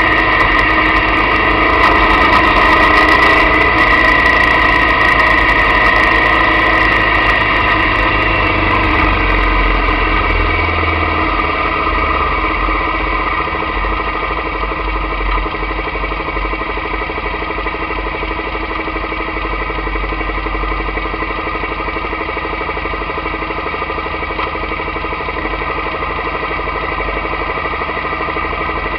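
The camera bike's own motorcycle engine running at low, steady revs, a little louder with a hiss of wind for the first several seconds, then quieter and settling into a steady idle.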